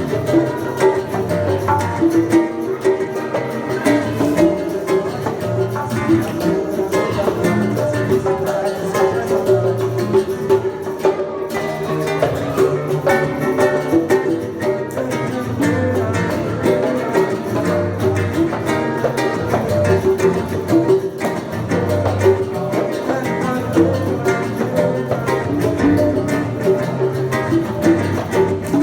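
Live acoustic music without singing: a violão (acoustic guitar) played with hand percussion, steady and continuous.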